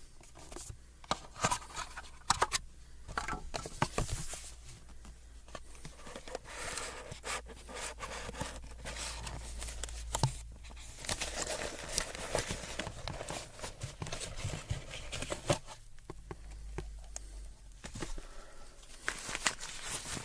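Close-miked handling of packaging and small accessories during an unboxing: crinkling with scattered sharp clicks and taps.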